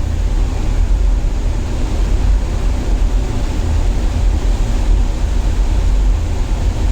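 Steady rumble of wind buffeting the microphone over the wash of the sea behind a cruise ship.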